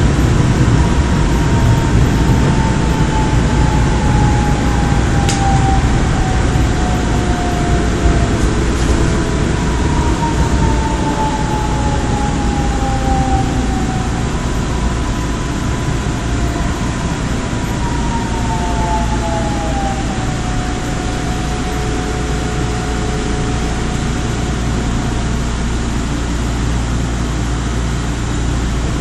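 Korail 351000-series IGBT-inverter electric train heard from inside the car, slowing for a station: the motor and inverter whine falls in pitch in repeated steps over a steady low rumble of wheels on track.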